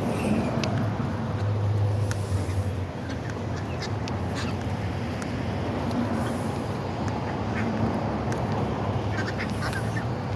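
Ducks quacking and geese honking in a flock gathered for food, in short scattered calls that come more often near the end, over a steady low rumble.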